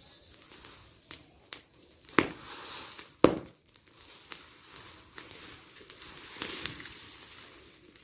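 Dry stalks and leaves rustling and crackling as a rake drags and pushes them into a smouldering brush fire, with two sharp cracks about two and three seconds in.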